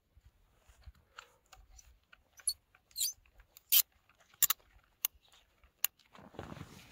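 Handling clicks and rattles as a side handle is fitted onto a cordless drill: about six short, sharp clicks, the loudest near the middle.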